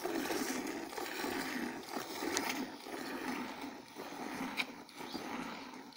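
Goat's milk squirting from hand-squeezed teats into milk in a steel pot: a quick rhythmic series of frothy, hissing streams.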